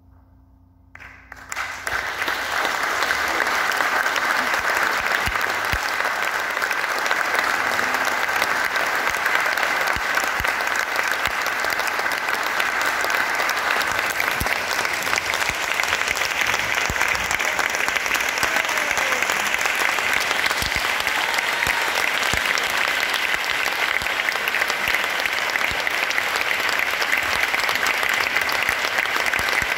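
Audience applauding in a large concert hall. The applause breaks out about a second in and then continues steadily.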